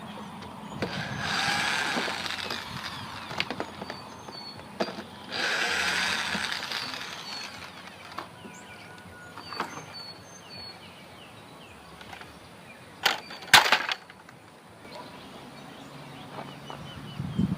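Repair work on a travel trailer's damaged corner trim as screws and trim are taken off: two bursts of a couple of seconds each, scattered clicks, then two sharp knocks near the end.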